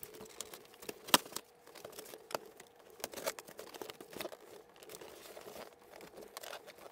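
Cardboard camera box being opened by hand: packaging crinkling and tearing, with scattered irregular clicks and taps, the sharpest about a second in.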